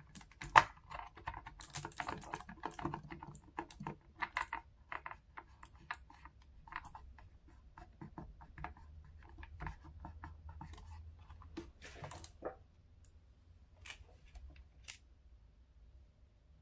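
Irregular plastic clicks, taps and scrapes from handling and prying open a Logitech G915 TKL low-profile keyboard's case. They come thick for the first few seconds, then thin out to a few single clicks.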